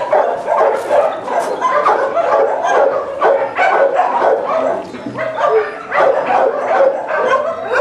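Many kennelled shelter dogs barking at once, a continuous mix of overlapping barks.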